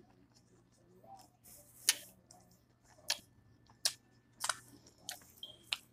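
Close-up chewing of a mouthful of taco, with about half a dozen sharp, wet mouth smacks and clicks scattered through it.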